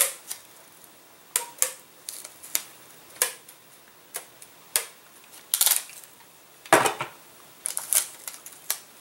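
Packing tape being pulled off a handheld tape-gun dispenser and torn off in short strips: about ten brief, separate rasps and snaps, the longest and loudest a little under seven seconds in.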